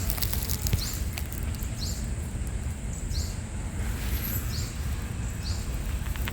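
A small bird repeats a short, high, downward-sweeping call about once a second over a low rumble of wind on the microphone.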